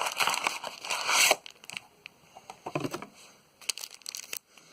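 Foil trading-card pack wrappers crinkling as they are handled, loudest in the first second and a half, with scattered clicks and another spell of crinkling near the end.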